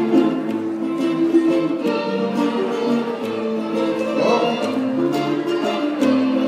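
Instrumental passage of a Greek folk song, with plucked string instruments playing a steady strummed rhythm under a melody.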